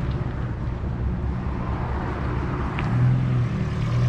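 Car engine idling steadily with a low, even hum, getting a little louder about three seconds in.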